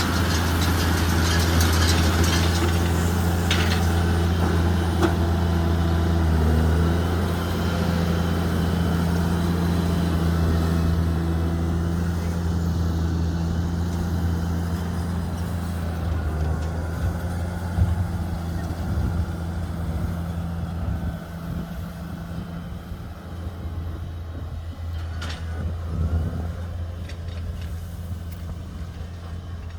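Tractor diesel engine running steadily with a low hum while driving a combined baler-wrapper working rice straw. It grows gradually quieter through the second half.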